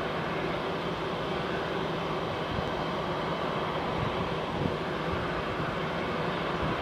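Boeing 747-8F jet engines at takeoff thrust, a steady rushing engine noise with a low rumble and no rise or fall.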